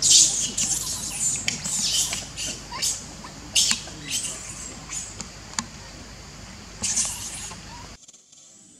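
Baby macaque screaming in a run of short, high-pitched squeals and shrieks, cutting off abruptly about eight seconds in.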